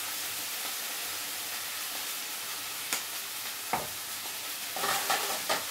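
Broccoli stir-fry sizzling steadily in a frying pan over medium heat, with a few sharp clicks and knocks of a utensil in the second half.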